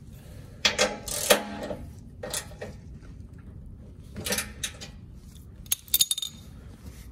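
Metal hand tools clinking and rattling: a socket, extension and ratchet handled and fitted to a bolt, in four short bursts of clicks and clinks, some with a brief metallic ring.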